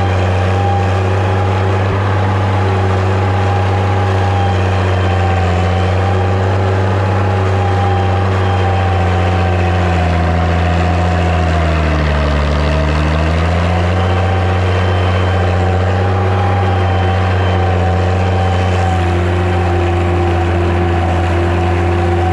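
Massey Ferguson 95X tractor's six-cylinder diesel engine running steadily at working speed. About halfway through, its pitch sags for a few seconds and then climbs back, as the engine speed is pulled down and recovers.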